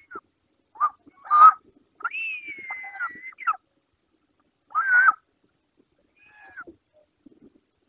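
Short-toed eagles calling at the nest: a series of short, clear whistled calls, with one longer call about two seconds in that starts high and falls slightly in pitch.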